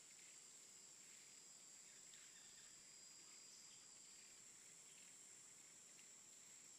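Near silence: a faint, steady high-pitched insect drone, such as crickets, with a few faint short chirps.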